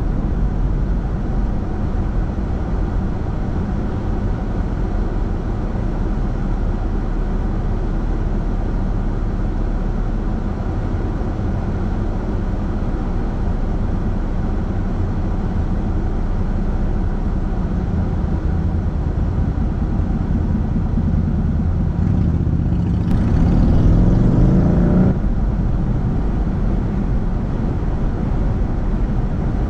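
Steady engine and road noise from a car being driven. Late on, an engine's pitch climbs for about two seconds as it accelerates, then cuts off suddenly.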